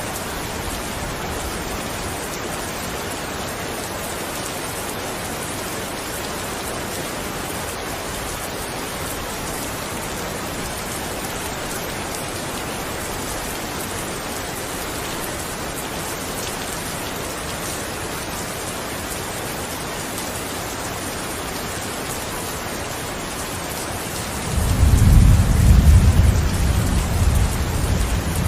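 Steady heavy rain falling. About 24 seconds in, a loud low rumble of thunder rolls in over the rain and keeps going.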